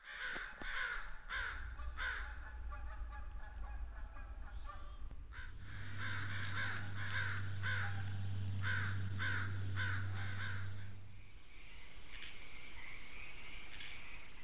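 Crows cawing in a long series of harsh calls, about one to two a second, broken briefly about five seconds in. From about eleven seconds in the calls stop and a steady chirring of crickets is left.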